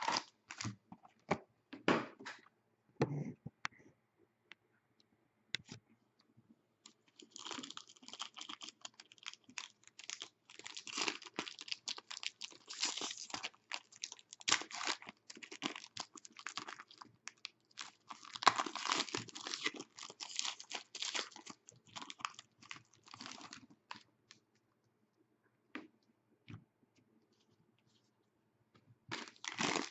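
Plastic wrapping being torn and crinkled as a sealed hockey card box is opened: irregular crackling and tearing on and off, densest through the middle, dying away to a few faint clicks near the end.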